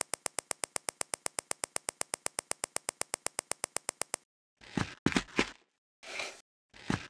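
A rapid, perfectly even clicking sound effect, about ten clicks a second, each with a short pitched ring, stopping abruptly about four seconds in. It is followed by four short noisy whooshing bursts, sound effects laid over a stop-motion LEGO build.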